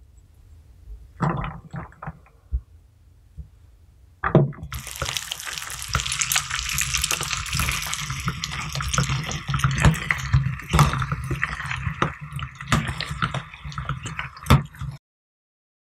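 A few light clatters as pomegranate seeds are tipped into a hand-cranked metal meat grinder. About four seconds in, the grinder starts forcing slime and seeds through its plate: steady wet squelching dense with small crackles and clicks, cutting off suddenly near the end.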